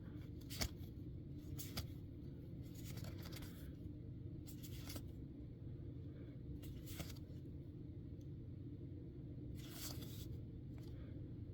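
Magic: The Gathering cards being flipped and slid against one another in the hand, a scatter of short soft rustles over a faint steady hum.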